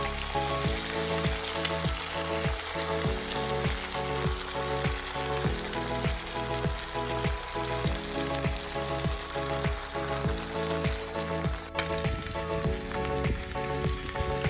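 Food sizzling as it fries in a cast iron skillet, an even hiss, with background music over it: steady notes and a regular beat.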